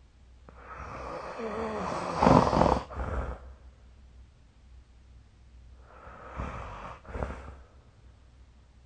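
A sleeping person snoring: a long, louder snoring breath from about half a second in to three seconds in, then a weaker one around six to seven seconds in.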